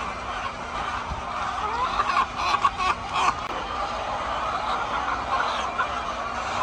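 Many hens clucking and chattering together in a coop, with a short run of sharp clicks or knocks about two to three seconds in.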